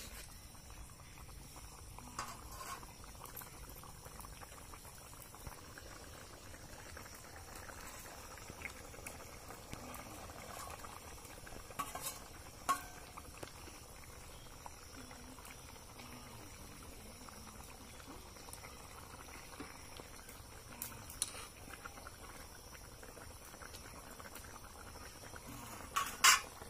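Fish curry boiling in a large iron kadai, a steady faint bubbling, with occasional clinks and scrapes of a metal spatula against the pan. The loudest clinks come as a pair near the end.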